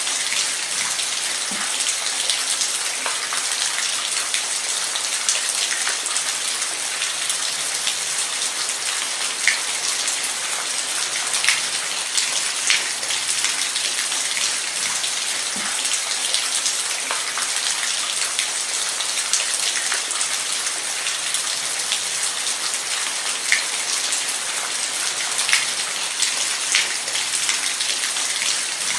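Steady rain falling: a dense, even hiss sprinkled with scattered louder drop impacts.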